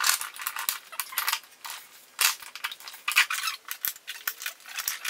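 Steel gears, shafts and shift forks of a VW 6-speed manual transmission clinking and clicking against each other as a gear is worked into place in the gear cluster, in a quick irregular string of sharp metal clicks.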